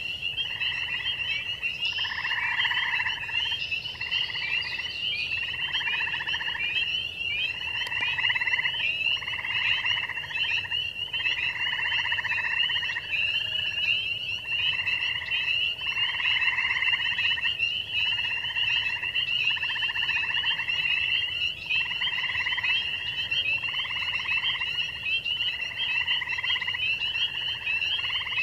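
Spring peepers and western chorus frogs calling in a dense chorus. A continuous wash of high, overlapping peeps runs under a lower trill that repeats about every second and a half.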